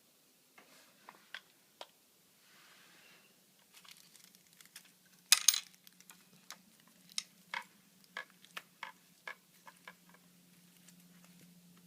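Small clicks and taps of hard objects being handled, with a louder clatter about five seconds in, over a faint steady low hum.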